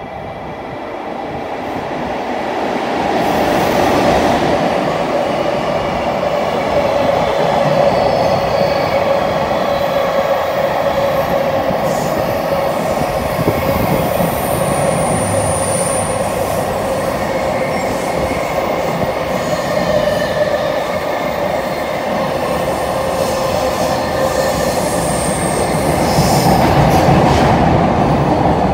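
A freight train hauled by a JR Freight ED76 electric locomotive passing at speed: a loud, steady rolling rumble of wheels on rail as the long string of container wagons goes by, with a few brief high-pitched wheel squeals. It swells over the first few seconds as the locomotive arrives, then holds loud until the last wagons pass.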